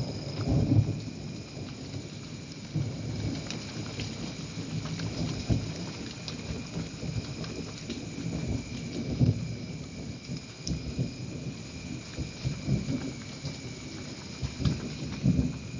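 Steady rainfall with frequent individual drops ticking and irregular low thumps of heavy drops landing.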